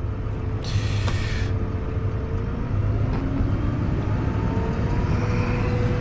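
Tractor diesel engine running steadily, heard from inside the cab. A short hiss comes about a second in, and near the end a faint tone rises slightly.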